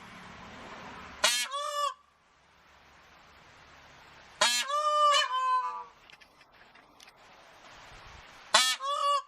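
Bird calls in three short bursts about three to four seconds apart, each a quick run of two or three harsh notes that dip in pitch, over a faint steady hiss.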